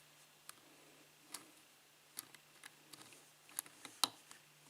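Faint, irregular clicks of a lock pick and tension wrench working the pin stack of an Abus padlock with a Schlage keyway during single-pin picking. The loudest click comes about four seconds in.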